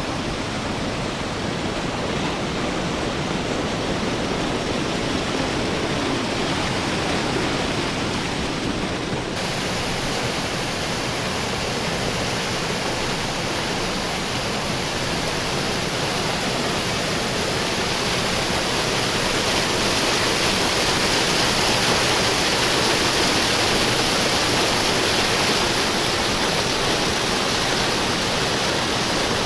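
Water rushing steadily through a river sluice, a continuous even roar that grows a little louder in the second half.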